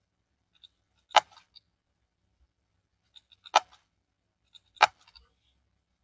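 Three sharp computer mouse clicks, one about a second in and two more a little over a second apart later, each with a few faint ticks around it.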